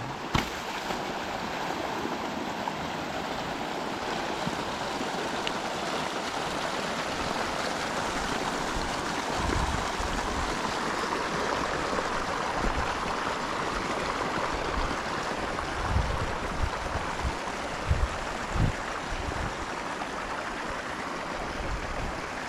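Irrigation water from siphon tubes rushing steadily out of the ditch into the field, a constant waterfall-like rush. Scattered low thumps join in from about ten seconds in.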